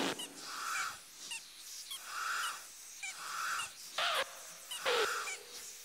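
Soft, breathy whooshing puffs from the Pinky Ponk airship as it floats, repeating about every second and a half, with a few sharper whooshes, one about four seconds in, and faint bird chirps.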